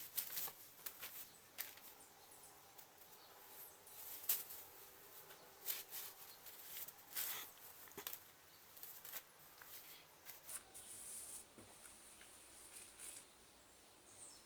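Faint, irregular crinkling and rustling of plastic packaging and T-shirt fabric being handled during unpacking, dying away near the end.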